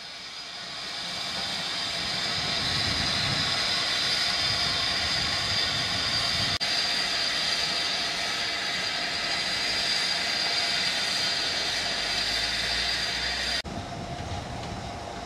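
LNER B1 class steam locomotive hissing steam steadily. The hiss cuts off suddenly near the end, leaving a quieter low rumble.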